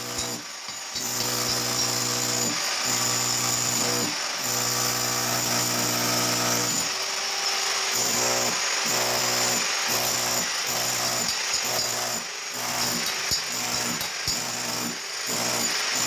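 Electric demolition hammer (jackhammer) chiselling up a tiled concrete bathroom floor. It runs in long bursts, cut by brief pauses every second or two as the trigger is let off.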